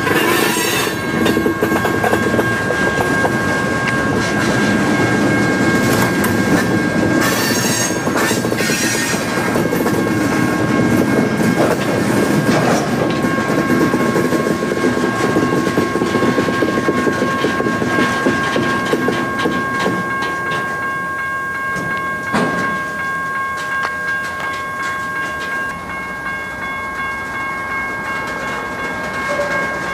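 Railroad cars, a former Conrail caboose and a loaded flatcar, rolling slowly over a grade crossing during a shove move: steel wheels rumbling and clacking over the rail joints, with a steady high tone ringing above the rumble. It grows a little quieter in the last third.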